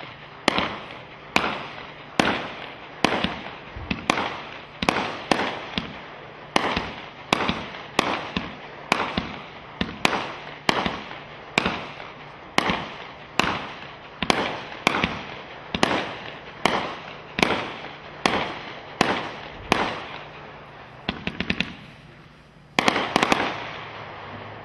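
Red Rhino Dragon Gold 500-gram fireworks cake firing shot after shot, roughly one sharp bang a second, each trailing off briefly. Near the end a quick cluster of several louder reports goes off together.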